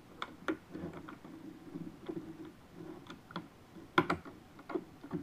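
Plastic Lego pieces clicking and tapping as they are handled and pressed onto a built model: a run of small, sharp clicks, the loudest about four seconds in.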